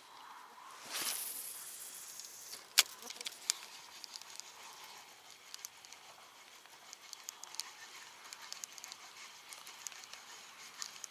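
A cast with a spinning rod and reel: a hiss of line running out swells about a second in and fades, a sharp click comes just before three seconds, then light scattered ticks as the reel is wound in.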